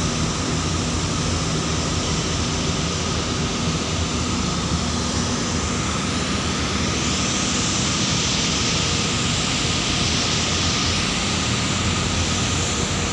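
Ship's engine running with a steady low drone, under a broad rushing hiss that grows a little louder around the middle.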